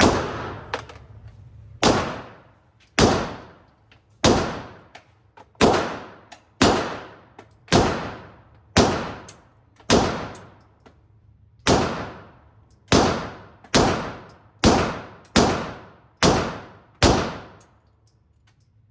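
Handgun fired repeatedly, about sixteen shots at roughly one a second with a short pause around the middle, each shot echoing.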